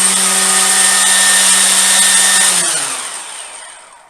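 Ryobi Expand-It battery-powered weedeater, fitted with cutting blades in place of string, running at full speed with a steady whine. About two and a half seconds in the trigger is released and the motor winds down, falling in pitch and fading out.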